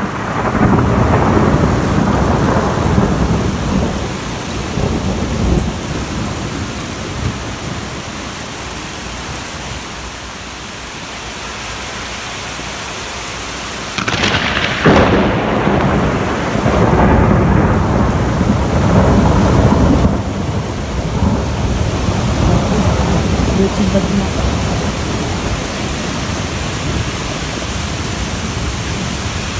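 Thunder over steady rain. A rumble at the start dies away over a few seconds. About fifteen seconds in a sudden sharp crack comes, followed by a long rolling rumble of several seconds.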